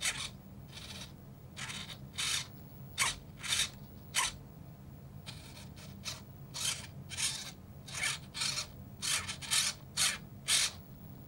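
Sub-micro 9-gram servos on the elevator and rudder of a foam RC model plane, driven back and forth in short moves that make brief whirring bursts at irregular intervals, over a steady low hum.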